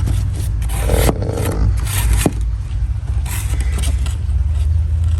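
Cardboard template being held and slid against the car's bodywork: a series of short scrapes and rubs.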